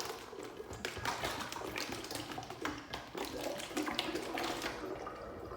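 Water in two joined plastic soda bottles being swirled and draining from one into the other through a vortex, heard as sloshing and gurgling with many irregular small clicks and taps.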